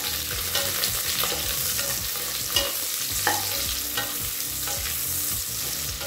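Sliced onions sizzling in hot oil in a pressure cooker as they start to sauté. A wooden spatula stirs them, scraping and knocking against the pot several times.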